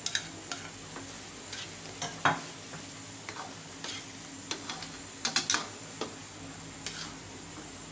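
A white plastic spatula scraping and knocking against a wok while fried chicken pieces are stirred into a thick chili sauce, in irregular strokes that are loudest about two seconds in and again around five and a half seconds. The sauce sizzles faintly underneath.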